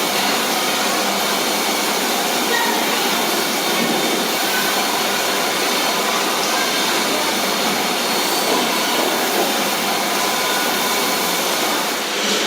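Steady, loud noise of food-processing plant machinery running, even and unbroken throughout.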